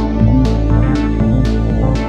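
Background music with a steady beat, electronic instruments with a regular percussive hit about twice a second.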